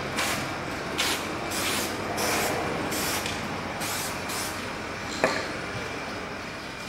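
Aerosol can of copper grease spraying onto a wheel hub bearing's seating and threads: a series of short hisses about a second apart, then one sharp click about five seconds in.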